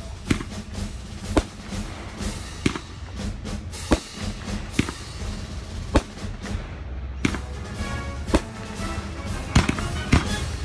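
Aerial fireworks shells bursting: about ten sharp bangs, roughly one a second, coming faster near the end, with music playing underneath.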